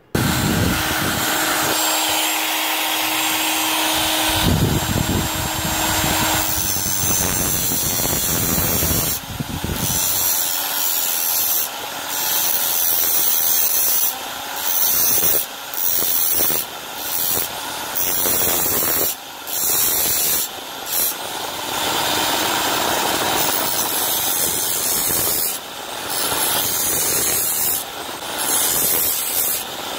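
Angle grinder with a cutting disc cutting through a TV board's thin metal I/O bracket. It starts suddenly with a steady motor hum, then turns into a continuous grinding hiss, broken every second or two by brief dips as the disc comes off the metal.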